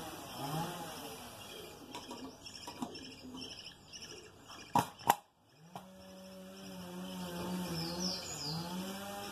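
Dove cooing in low, repeated rising-and-falling notes, with one long held coo in the second half. Two sharp clicks about halfway through, and a few brief high chirps from a smaller bird near the end.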